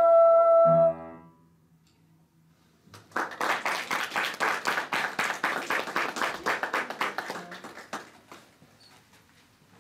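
A girls' vocal quartet with piano holds the song's final chord, which ends about a second in. After a pause of about two seconds, a small audience claps for about five seconds, then the clapping dies away.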